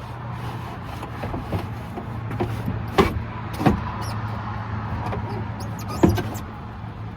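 Window glass and door hardware knocking and clunking as the glass is worked down into a truck door onto a new window regulator: four sharp knocks, the loudest about three and six seconds in, over a steady low hum.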